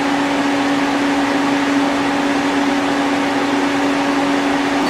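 Citizen M32 CNC Swiss-type lathe running with its spindles stopped: a steady whirring hum with one held low tone.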